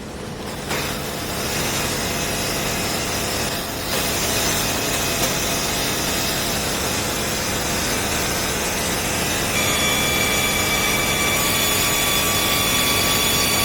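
Battery-electric remote-control lawn mower with a 1500 W motor running and cutting grass: a steady whirring, rushing noise. A steady high whine joins it about ten seconds in.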